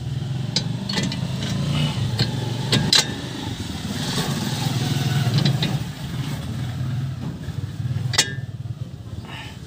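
A motor vehicle's engine running steadily as a low rumble, with a few sharp metallic clicks of parts and tools being handled.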